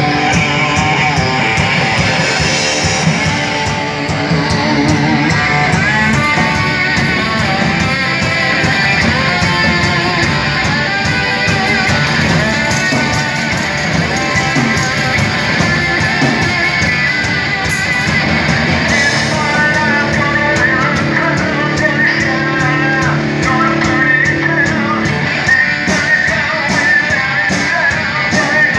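Live rock band playing loud and without a break: electric guitar over a drum kit and bass guitar.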